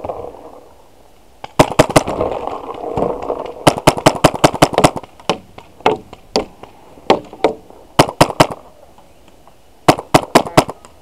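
Paintball marker firing in rapid volleys of sharp cracks, several shots a second, in bursts with short pauses between them.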